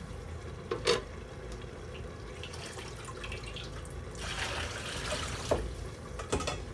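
Water from a tap running and dripping into a sink as boiled mustard greens are rinsed under cold water and squeezed, with a few sharp knocks about a second in and near the end.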